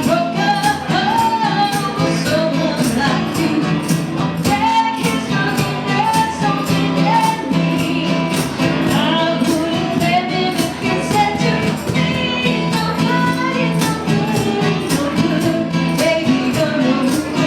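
Rock band playing a song with a steady beat: drums and a jangling tambourine or cymbal keep time under a melody line.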